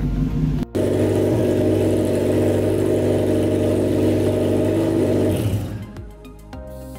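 A car engine running at steady revs, loud and even, fading away about five and a half seconds in.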